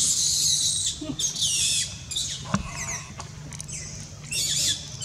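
Baby macaque giving high-pitched squealing screeches in bursts: one about a second long at the start, another just after a second in, shorter squeaks in the middle, and a last burst near the end.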